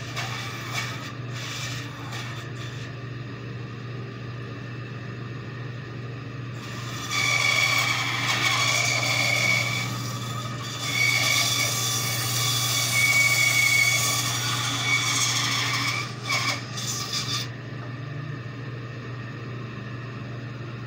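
A bandsaw runs with a steady hum. From about seven seconds in until about sixteen seconds the blade cuts into a wooden block, louder and rougher with a high whine, then drops back to the free-running hum with a few light knocks from the wood being handled.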